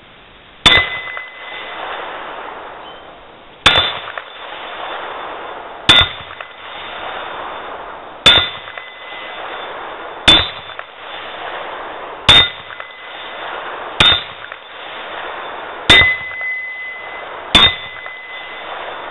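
Nine .223 rifle bullets striking an 8-inch AR500 steel plate hung on a T-post hanger, about two seconds apart. Each hit is a sharp clang followed by a short, high ring of the plate.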